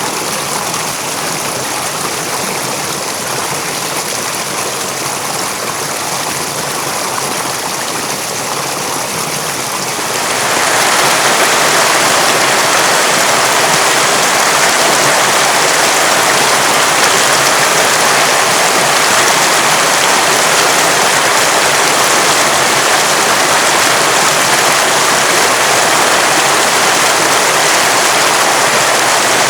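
River water running: a steady rushing and splashing over rocks. About a third of the way in it grows louder and brighter and stays so.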